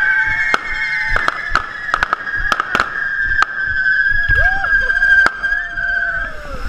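Correfoc fireworks: spark fountains spraying with a steady high whistle that slowly sinks in pitch, and about a dozen sharp firecracker cracks going off at irregular intervals.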